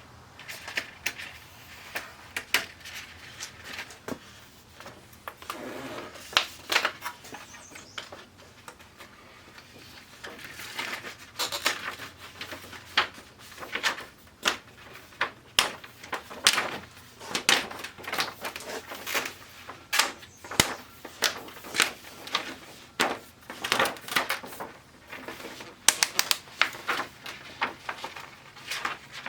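Irregular clicks, taps and rustling from hands working inside an opened LCD TV panel, lifting out the white cardboard-like reflector sheet. The clicks come thicker and louder in the second half.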